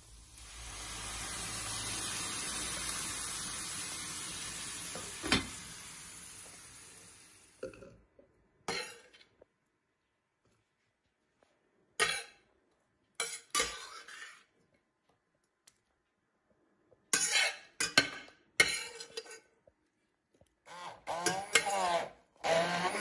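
Pasta cooking water hits a hot pan of sautéed zucchini and sizzles for several seconds, fading out. Then a metal spoon clinks and scrapes against the stainless steel pan as the zucchini are moved into a plastic jug, and an immersion blender starts up near the end.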